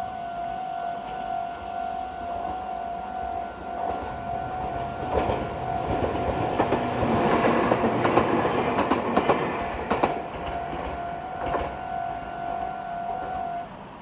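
Japanese level-crossing alarm ringing steadily while a Meitetsu train passes over the crossing. The wheels clack over the rail joints, loudest about six to nine seconds in, and the alarm cuts off near the end.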